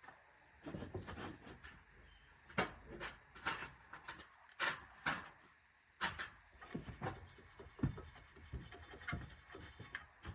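Irregular metallic clinks and knocks of hand tools and sockets being handled, a couple of dozen sharp hits spread unevenly.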